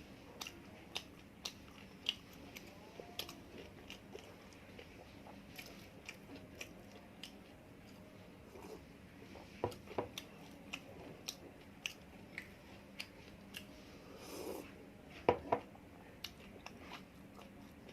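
A person chewing and biting food close to the microphone: a run of short, crunchy mouth clicks, with a few louder bites about ten and fifteen seconds in.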